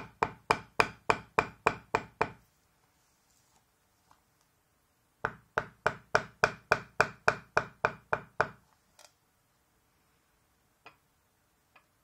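A leather-working maul striking a beveler on vegetable-tanned leather in two runs of steady taps, about three to four a second, with a pause of about three seconds between them and two faint knocks near the end. This is clean-up beveling, the beveler stepped along the outlines of a floral carving.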